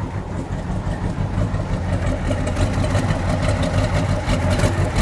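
A 1971 Dodge Charger Super Bee's factory 426 Hemi V8 idling steadily through its dual exhaust, growing a little louder near the end as the tailpipes come close.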